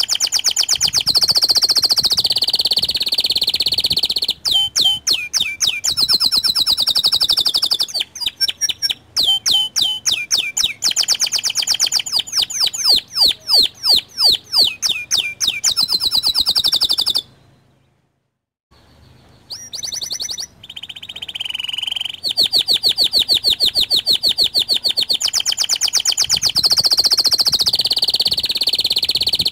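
Local canary singing long runs of rapid, high trills and rolled repeated notes, breaking off completely for about a second past the middle before resuming.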